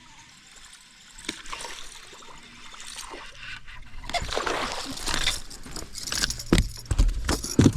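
Water splashing and sloshing as a hooked bass thrashes at the surface, growing louder about four seconds in, with a few heavy thumps near the end.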